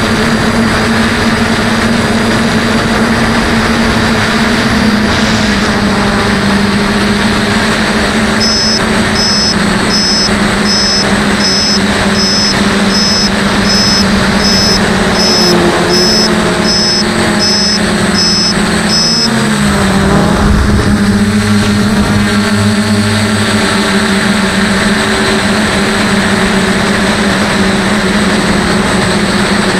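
DJI F450 quadcopter's brushless motors and propellers droning steadily, heard from the onboard camera; the pitch dips and wavers about two-thirds of the way through. For some ten seconds from about a third of the way in, a run of about fifteen short, high double beeps, a little more than one a second, sounds over the drone.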